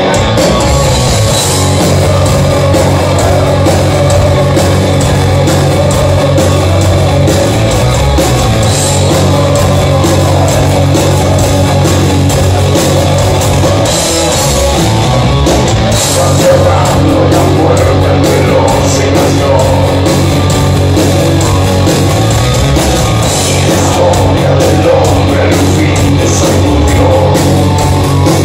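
Heavy metal band playing live and loud: electric guitars, bass and drum kit in a steady, unbroken wall of sound.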